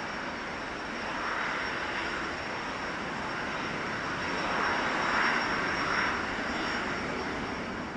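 Airplane engines running: a steady rushing noise that swells twice, about a second in and again around five seconds in, with a thin high whine held throughout.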